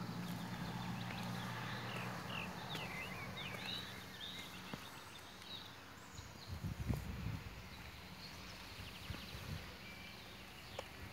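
Quiet outdoor ambience with a small bird chirping a run of short, quick notes a few seconds in, over a low steady hum that stops after about two seconds. A brief cluster of low thumps and rumble comes about halfway through.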